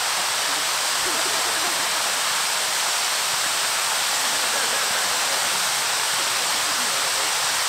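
Several ground-mounted spinning firework wheels burning together, giving a steady, even hiss of spraying sparks with no bangs.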